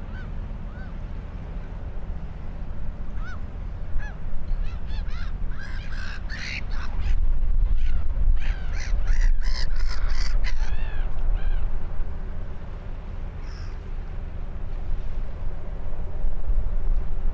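A flock of geese calling, a flurry of short rising-and-falling calls that peaks about four to eleven seconds in and then thins out, over a steady low rumble.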